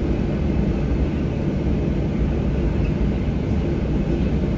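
Steady low rumble of a Boeing 737-800's CFM56 jet engines at ground idle, heard from inside the passenger cabin.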